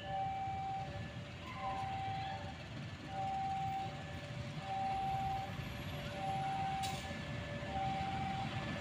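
Railway level-crossing warning alarm sounding a repeating two-tone signal, a high note and a lower note alternating, over the low rumble of an approaching diesel locomotive.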